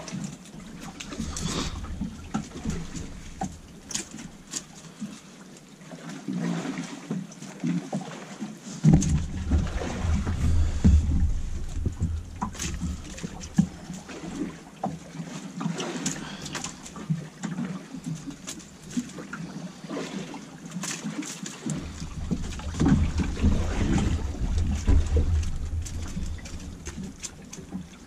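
Prawn traps being picked through by hand on a small boat: wire-mesh traps and their catch rattling and clicking in irregular bursts. A low rumble swells up twice, about a third of the way in and again near the end.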